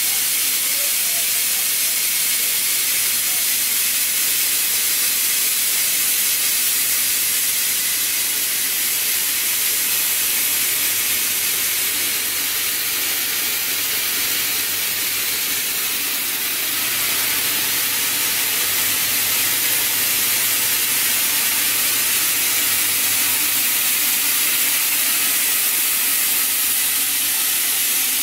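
FDY yarn spinning and drawing machine running: a steady high-pitched hiss with a faint low hum underneath.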